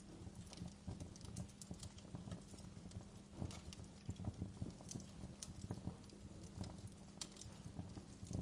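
Wood fire crackling: irregular sharp pops and snaps of burning logs over a low steady rumble.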